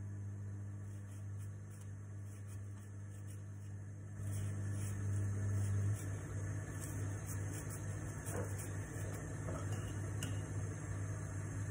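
A steady low mechanical hum, growing a little louder about four seconds in and easing off about two seconds later, with faint small ticks of a knife working on an onion.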